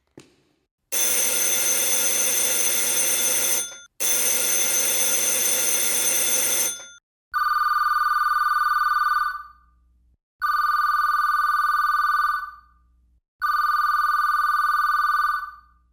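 Telephone ringing: two long rings of about three seconds each, then three shorter rings with a purer, higher tone, each ring fading out at its end.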